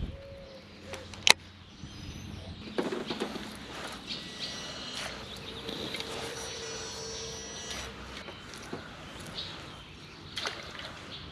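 Baitcasting reel being cast and reeled in, with one sharp click about a second in and a faint steady whir for a couple of seconds in the middle.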